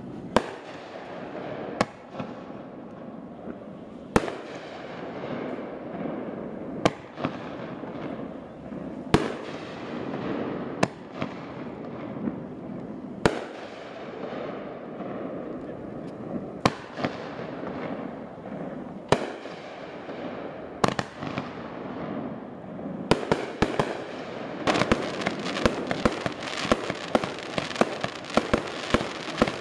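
Fireworks display: aerial shells bursting with a sharp bang every two seconds or so, each followed by a fading echo. Near the end many bangs come in quick succession.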